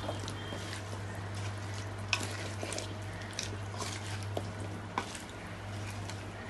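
Slotted spatula stirring and scraping taro cubes in a kadai, with a few sharp knocks of the spatula against the pan over a faint sizzle of frying oil. A steady low hum runs underneath.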